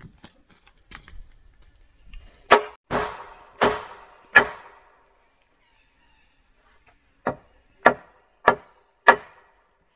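A blade chopping into wood: eight sharp strikes, a run of four, a pause, then four more at an even pace of under a second apart.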